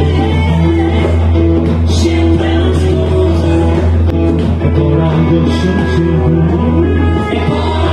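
Live band music: a didgeridoo's steady low drone runs under guitar, drums and held melody notes.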